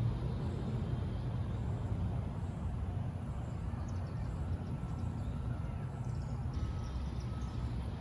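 Outdoor ambience: a steady low rumble, with a few faint high chirps in the middle and a faint thin steady tone in the second half.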